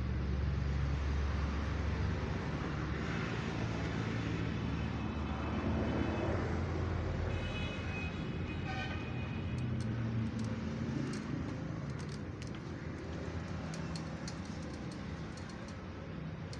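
Steady low rumble of a running motor vehicle, street-traffic noise. A brief high-pitched tone comes about eight seconds in, and faint ticks are scattered through the second half.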